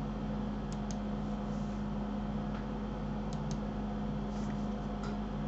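Computer mouse clicking in a few quick pairs over a steady low electrical hum.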